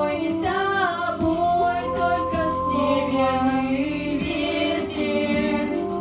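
A girls' vocal group singing a song together into microphones, several voices holding and gliding between notes at once.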